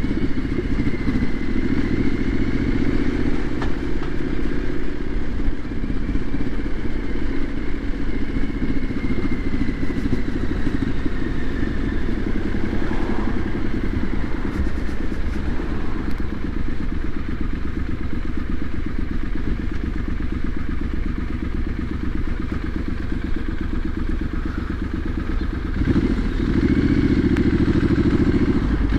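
Triumph SS 900 motorcycle's engine running as the bike is ridden along a town road in slow traffic. The engine gets louder about three seconds before the end.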